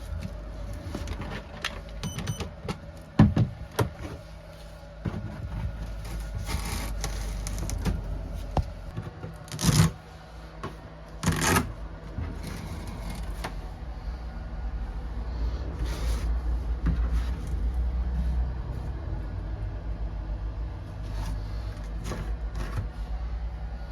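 Hand work on plumbing parts: scattered clicks and scrapes with a few sharp knocks, the loudest about 3, 10 and 11.5 seconds in, over a steady low hum.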